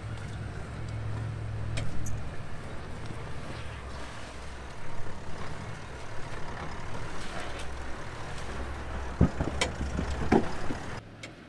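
Four-wheel-drive vehicle's engine running low and steady while it crawls down a narrow track, with a few sharp knocks from the vehicle near the end. The sound drops away suddenly just before the end.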